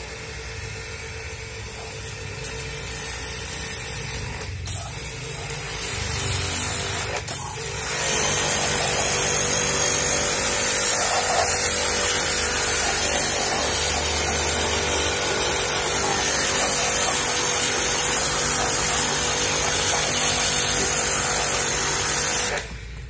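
High-pressure water jet from a pressure-washer lance hissing and splashing as it blasts an aluminium cylinder head clean. It grows louder over the first several seconds as the nozzle works into the combustion chambers, stays steady, then stops abruptly near the end.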